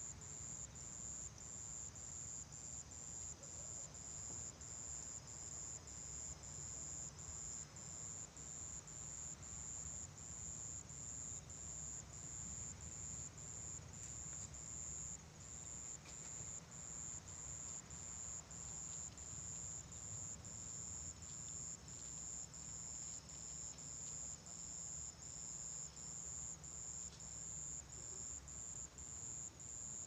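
An insect chirping in a steady, evenly repeated high-pitched pulse, about one and a half chirps a second, over a low rumble of sea breeze.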